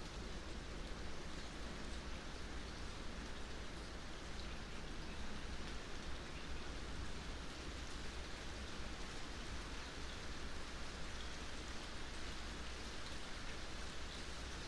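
Steady rain falling in a forest: an even hiss with small scattered drop ticks.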